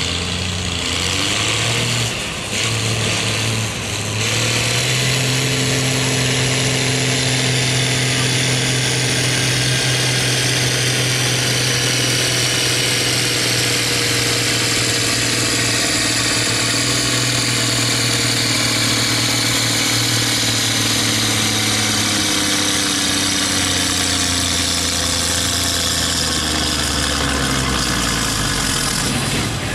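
Farm tractor engine pulling the sled at a tractor pull: it revs up over the first few seconds with two brief dips, holds a steady, loud pitch under full load, then its pitch slowly sinks as the load builds, and it drops off near the end.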